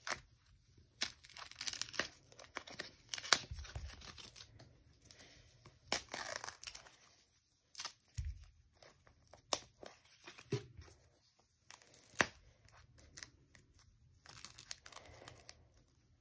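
Packaging being pulled and torn off a doll's hands and legs: irregular tearing and crinkling with scattered sharp snaps.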